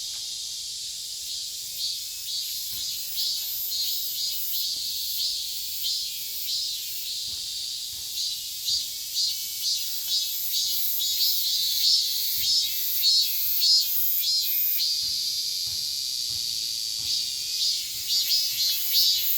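Korean robust cicada (Hyalessa fuscata, 참매미) singing its 'maem-maem-maem' song: a high-pitched call pulsing about twice a second, which turns to a steady buzz for a couple of seconds about two-thirds of the way through before the pulses resume.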